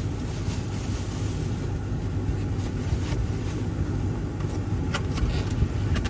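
Steady low rumble of a motor vehicle running, with a few faint clicks a little before the end.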